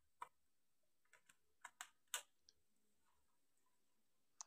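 Near silence broken by about five faint, short clicks scattered through.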